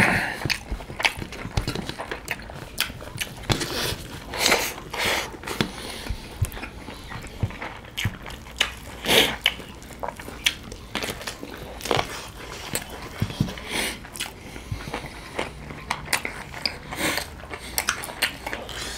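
Close-up mouth sounds of two people eating chicken biryani with their hands: chewing, lip-smacking and biting as a run of short wet clicks, with a few louder moments about five and nine seconds in.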